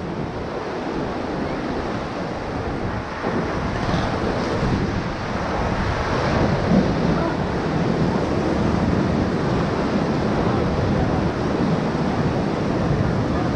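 Whitewater rushing and splashing steadily around a raft as it runs through a rapid, building slightly after the first few seconds.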